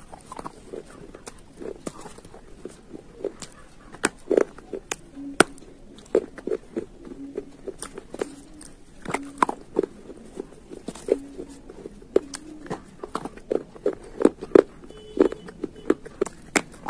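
Pieces of eating slate being bitten and chewed close to the microphone: a steady run of sharp, irregular crunches and cracks.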